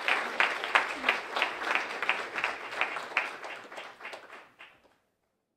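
Audience applauding, with individual sharp claps standing out from the crowd's clapping. The applause thins and fades away about five seconds in.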